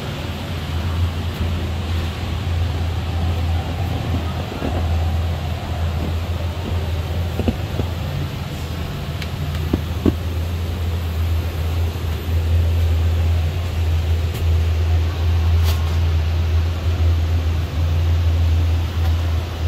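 Electric air blower running continuously to keep an inflatable slide inflated: a steady low hum with a rushing of air, and a few faint clicks in the middle.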